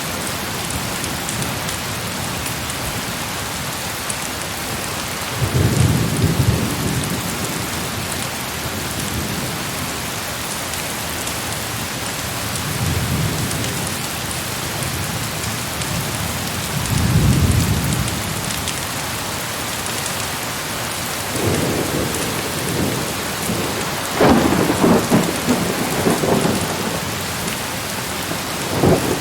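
Heavy rain falling steadily, with several low rumbles of distant thunder swelling and fading over it.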